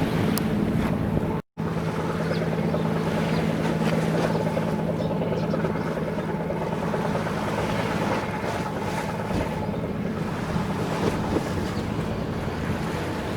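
Steady low drone of a cargo ship's diesel engine, with wind and water rushing. The sound cuts out for a moment about a second and a half in.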